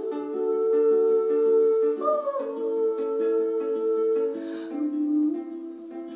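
Ukulele strummed, with a woman's voice holding long notes over it and sliding to a new note about two seconds in.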